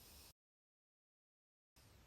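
Near silence: faint room hiss that cuts out to dead silence about a third of a second in and comes back after about a second and a half.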